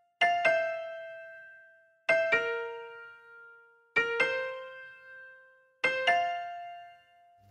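Background piano music: four slow, sparse chords struck about two seconds apart, each left to ring and fade out.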